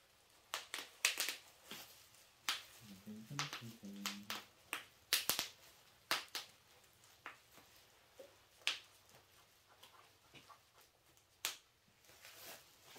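Scattered sharp clicks and taps from painting tools and materials being handled, coming irregularly and thickest in the first half. A brief low murmur about three to four seconds in.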